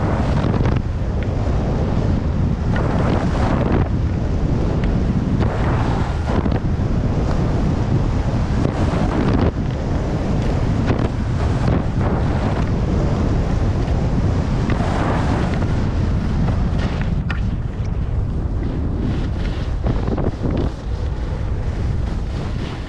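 Wind rushing over the microphone of a skier going fast down a groomed run. Over it, the hiss of ski edges scraping the snow swells every couple of seconds as the skier turns.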